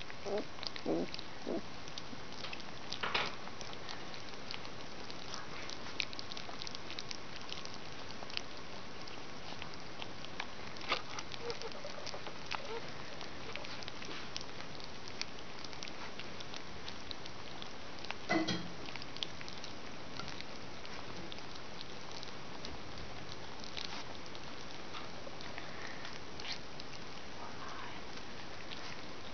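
Collie puppies eating their first solid food from a plate: many small wet smacking and lapping clicks over a steady hiss, with a few short squeaks near the start and one louder one about two-thirds of the way through.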